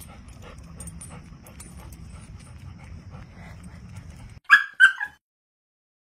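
Faint outdoor background with light clicks, then about four and a half seconds in a dog gives three quick, short, high-pitched yips.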